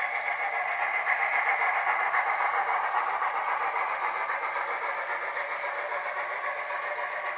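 HO scale model steam locomotive (a Van Hobbies CN 6060 with an ESU sound decoder) running on the layout: steam sound and running clatter with a fast rhythmic beat, swelling a second or two in and easing toward the end.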